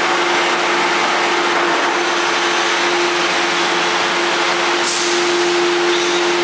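Hydraulic power unit of a 315-ton hydraulic salt-brick press running, a steady hum over a whirring noise as the press works, with a short hiss about five seconds in.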